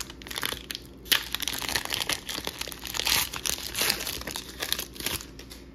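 Foil wrapper of a Pokémon trading-card booster pack crinkling and crackling as it is handled and opened, with a sharp crackle about a second in.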